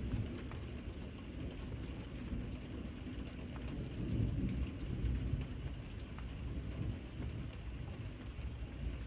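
Steady rain with scattered drips, under a low rumble of thunder that swells about halfway through.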